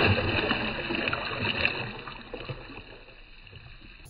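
Splash of a released red snapper dropped into the sea, then water sloshing and bubbling that fades away over about two seconds. It sounds muffled.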